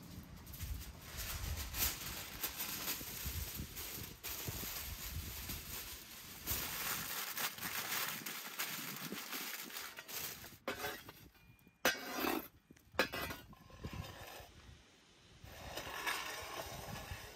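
Aluminium foil crinkling as it is pressed and folded around a whole pumpkin, with a few sharper clatters about two-thirds of the way through.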